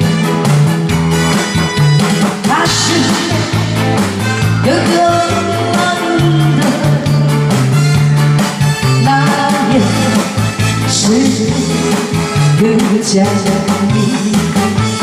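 A woman singing a Korean song through a microphone and PA over a backing track with bass and drums.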